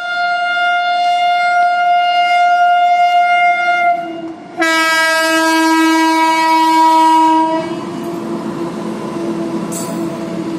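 Electric locomotive horn sounding two long blasts, the first lasting about four seconds and the second, fuller one about three seconds after a brief gap. Then the steady rumble and clatter of the goods train's wagons rolling past.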